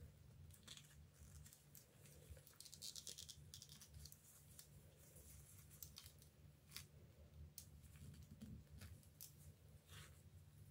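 Faint clicks and light scraping of small metal lamp parts being handled and fitted together, with a short scrape about three seconds in.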